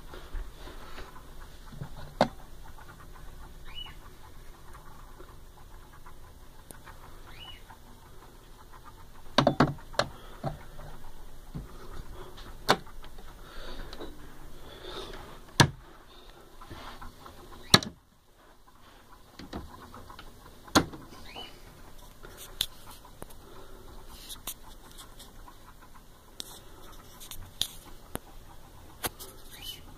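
Scattered clicks and knocks at irregular intervals, a few of them sharper and louder, from handling around a wooden record-player cabinet.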